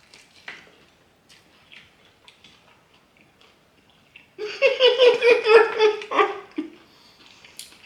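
Faint crunching clicks, then about four seconds in a high, wavering voice-like sound that lasts nearly two seconds.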